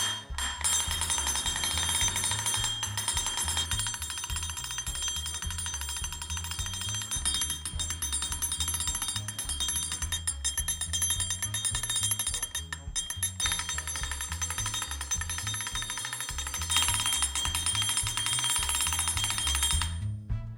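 Hand-cranked laser-cut steel 'Gear Clink' sound-effect machine running: a continuous, dense metallic clinking rattle with some ringing tones. It stops shortly before the end, over background music with a bass line.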